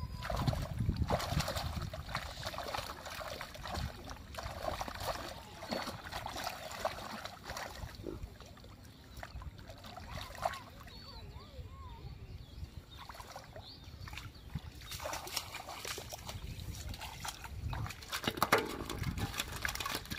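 Hands splashing and sloshing in shallow muddy water inside a bamboo polo fish trap, groping for trapped fish; irregular small splashes and trickles.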